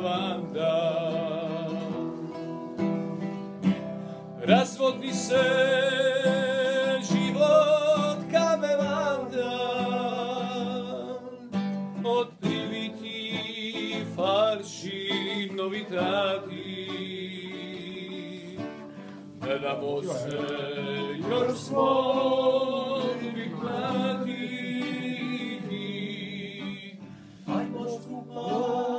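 A man singing a traditional Croatian song in long held notes with vibrato, accompanying himself on a nylon-string classical guitar.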